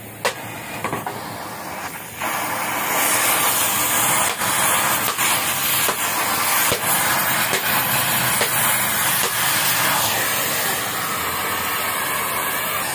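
Gas cutting torch hissing steadily as its flame cuts into the steel shell of a motorcycle muffler, with scattered crackles of spattering molten metal. The hiss comes up about two seconds in, after a few quieter clicks.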